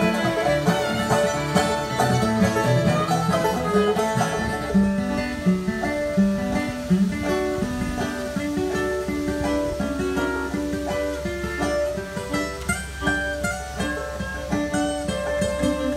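Old-time string band playing an instrumental passage: fiddle, clawhammer-style banjo and acoustic guitar together, with a steady plucked rhythm under the melody.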